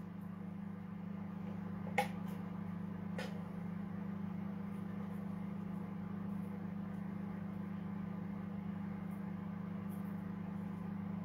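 A steady low electrical hum, with two faint clicks of a plastic spatula against an opened tin can about two and three seconds in as condensed milk is scraped out.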